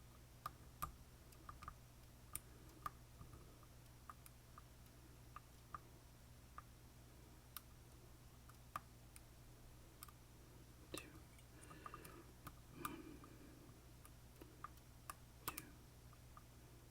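Faint, irregular clicks of a lock pick working the pins of an Assa Twin Combi lock, the pins clicking as they set under tension, with a little soft handling noise about two-thirds of the way through.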